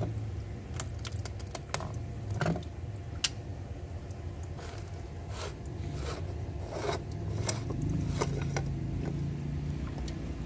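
Plastic union nuts on a pool filter's PVC inlet and outlet lines being unscrewed with channel-lock pliers and by hand: irregular clicks and scrapes of plastic threads and tool, over a steady low hum.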